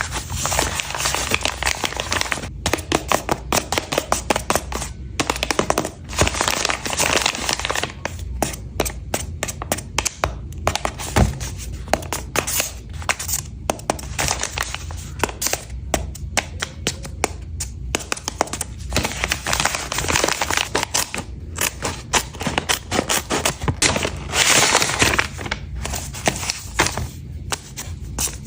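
Blind bag packaging being handled and opened by hand: dense crinkling and rustling with many sharp crackles and small knocks.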